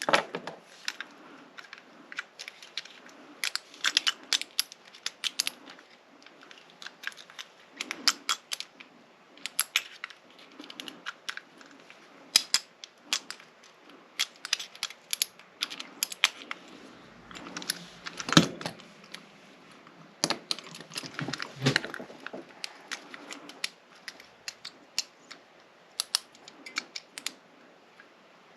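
Lock pick and tension wrench working the pins of a pin-tumbler lock cylinder: irregular small metallic clicks and scrapes, sometimes in quick runs.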